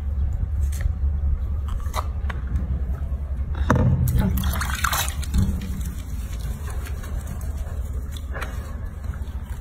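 Water sloshing and dripping in a filled sink as a wet baby monkey is lathered by hand, over a steady low rumble. A louder, noisier stretch comes about four seconds in.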